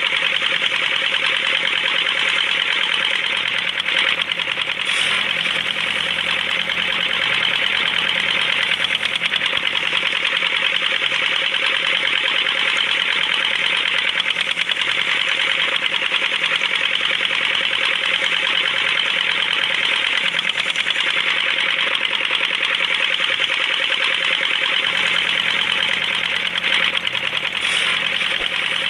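Small electric motor running steadily, with a fast, even buzzing rattle.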